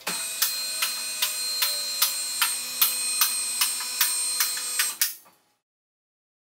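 Two-post car hoist lifting a four-wheel drive. Its electric hydraulic pump hums steadily while the arm safety latches click about two and a half times a second, and both stop suddenly about five seconds in.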